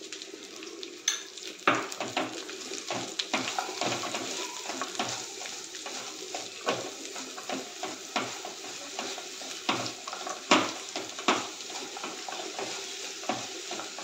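Wooden spatula stirring and scraping a mix of fried pieces in a nonstick kadai, with a steady sizzle of ghee frying underneath. The spatula knocks on the pan over and over, loudest near the middle.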